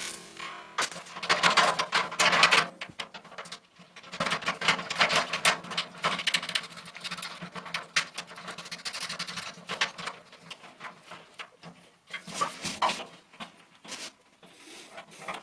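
A wad of paper towel rubbing and wiping the inside of a black metal IKEA trash can in quick scratchy strokes. Later come lighter handling knocks and clicks against the can.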